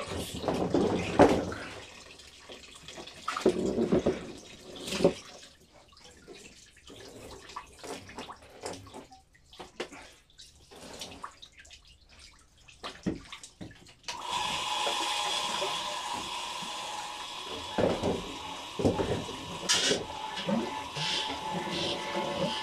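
Wine running and splashing around a basket wine press and its tray, in irregular gushes at first; about fourteen seconds in, a steady rushing flow with a faint hum takes over.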